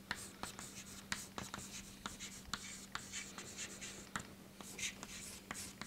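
Chalk writing on a chalkboard: faint scratching strokes broken by sharp taps as letters are formed, a few taps a second at irregular spacing.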